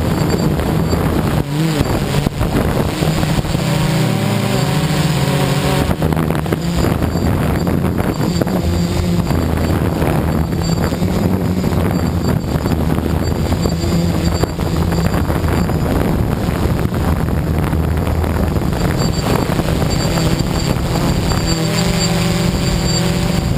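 V303 Seeker quadcopter's motors and propellers buzzing steadily in flight, the pitch wavering as the motors change speed, with wind rushing over the on-board microphone.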